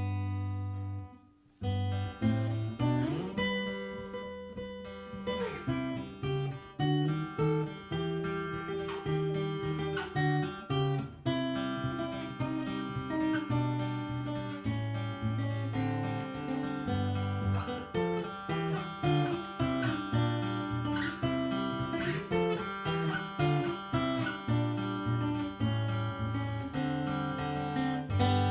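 Yamaha APX 3 acoustic-electric guitar played through its pickup and a PA, plucked note by note with low bass notes under a melody. There is a slide in pitch a few seconds in.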